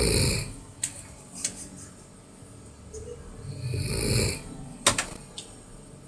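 A person snoring loudly, two long snores about four seconds apart. A few sharp clicks come between them, the loudest just after the second snore.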